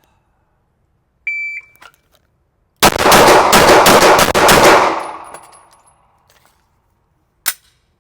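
A shot timer beeps once, and about a second and a half later a 9mm Glock 48 pistol fires a bill drill: six rapid shots in about two seconds, echoing off the range walls. A single sharp click follows near the end.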